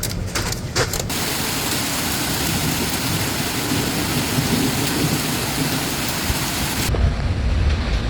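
Thunderstorm: heavy rain hissing steadily with thunder rumbling low underneath. Sharp clicks of drops striking a surface in the first second; about seven seconds in the sound changes abruptly to a deep rumble with little hiss.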